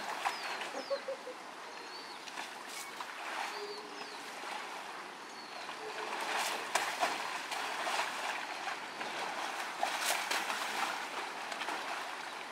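An Asian elephant in a mud wallow, wet mud and muddy water splashing and sloshing in irregular bursts, loudest about six to seven seconds in and again around ten seconds. A few faint bird chirps in the first few seconds.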